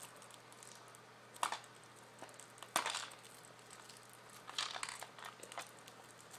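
Packaging being worked open by hand: a few short bursts of crinkling and tearing about one and a half, three and five seconds in, as the package resists opening.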